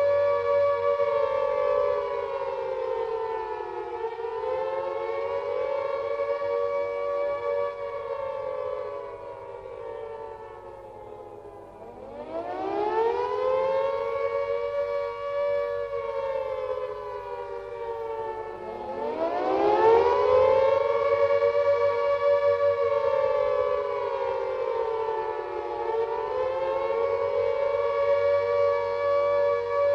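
World War II air raid siren wailing: a held, steady note that sags and fades about ten seconds in, then winds steeply back up, twice, to its full pitch. It is the alert that enemy bombers are coming and people must take shelter.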